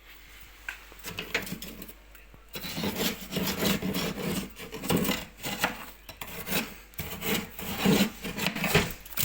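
Frost and ice being scraped off inside an old Soviet refrigerator's freezer during defrosting: a run of irregular rasping scrapes, growing dense about two and a half seconds in.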